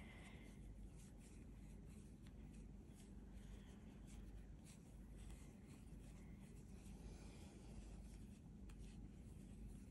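Near silence: faint soft rustles and light ticks of a 4 mm metal crochet hook drawing acrylic DK yarn through stitches, over a steady low room hum.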